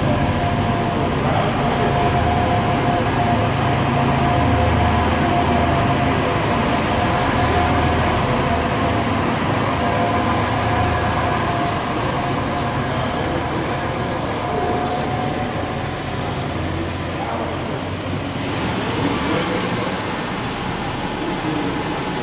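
Transit vehicle running, a low rumble under broad road-and-wheel noise with a steady high whine that fades out about two-thirds of the way through.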